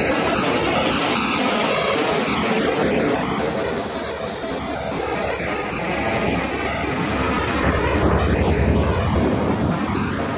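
Union Pacific freight train's cars rolling past: a steady rumble and clatter of wheels on the rails, with a thin, steady high whine running through it and a deeper rumble swelling about two thirds of the way in.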